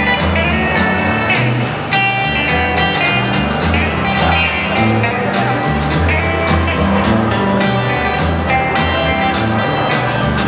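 Country-style music with guitar and a steady beat.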